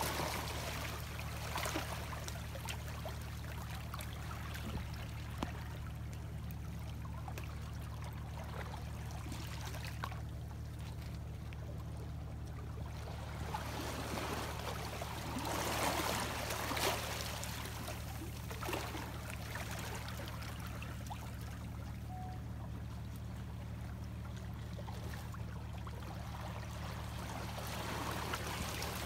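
Seawater washing and trickling over shore rocks, swelling about halfway through and again near the end, over a steady low hum.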